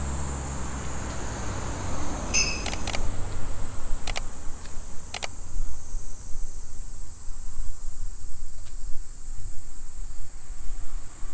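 Insects shrilling, a steady high-pitched drone, over a low rumble that fades in the first couple of seconds. A few sharp clicks come about two to five seconds in.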